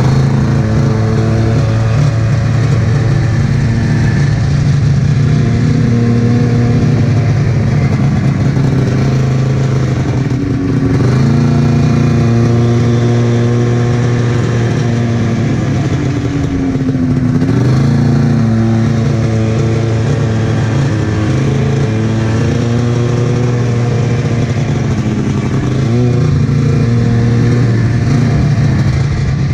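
Arctic Cat F7 snowmobile's two-stroke twin running through a D&D aftermarket pipe and Jaws silencer can while riding a trail. The engine note holds steady, then drops and climbs back a few times, about ten, seventeen and twenty-six seconds in, as the throttle is eased off and reapplied.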